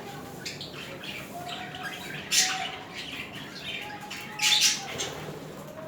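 Budgerigars chattering and warbling without a break, with two loud harsh squawks about two and a half and four and a half seconds in.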